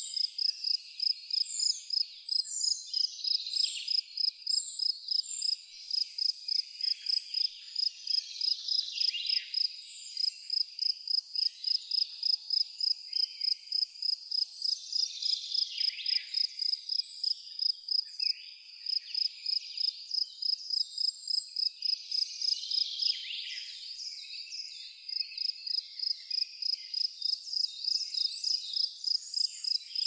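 A cricket chirping steadily in a high, even pulse, about three chirps a second, breaking off briefly twice in the second half. A few short bird calls sound over it, mostly early.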